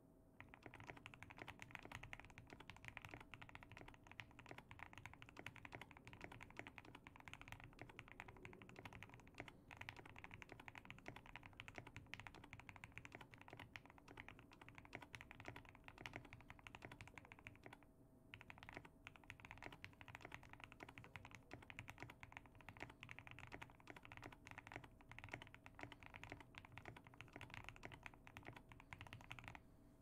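Fast, continuous typing on a Tofu65 2.0 mechanical keyboard: lubed Gateron Oil King linear switches on an aluminium plate, tape-modded, with Cement Grey PBT keycaps. It pauses briefly just past the middle and stops near the end.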